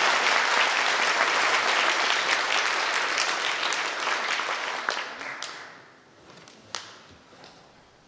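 Audience applauding; the clapping dies away about five to six seconds in, leaving a few scattered single claps.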